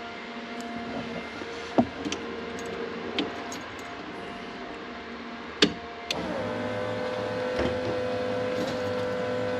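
A start attempt on a car with a nearly dead battery: two sharp clicks, then from about six seconds in a steady electric whine that drops a little in pitch and holds.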